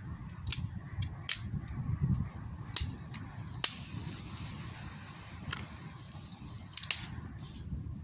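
Wood campfire crackling, with about ten sharp, irregular pops, over a steady low wind rumble.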